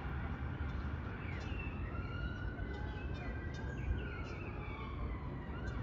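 A distant siren wailing in one long, slow rise and fall, over a steady low background rumble, with small birds chirping now and then.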